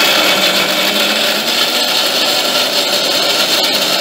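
Bajaj electric mixer grinder running steadily and loudly, its steel jar grinding sliced raw mango, ginger, garlic and green chilli with salt into a chutney paste.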